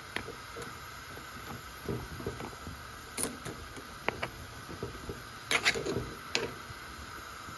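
Pot of beef trotters in spiced water boiling hard on high heat, with bubbling and small irregular pops. A few louder clicks come about three and five and a half seconds in.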